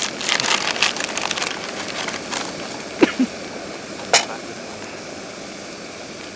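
Crackling and popping of food cooking over a campfire over a steady hiss: a cluster of crackles in the first second, then two sharp pops about three and four seconds in.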